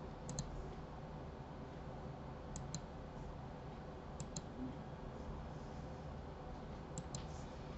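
Computer mouse clicks: four quick double clicks spread out, each a pair of short, faint clicks, over a low steady hiss.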